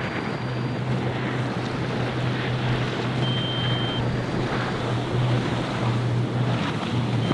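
Wind buffeting the microphone over rough surf, with a boat engine's steady low drone underneath.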